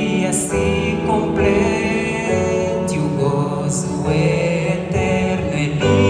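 Live Portuguese-language gospel song: singing over a band of drums, bass, electric guitars and keyboard.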